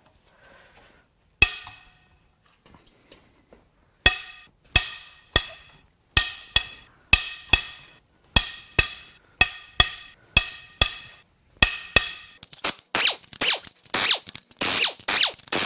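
Sharp metallic cracks and clicks, each with a brief ring, come about twice a second as hand tools on a long extension break the cylinder-head bolts loose. Near the end come several short, louder bursts from an air impact wrench spinning bolts out.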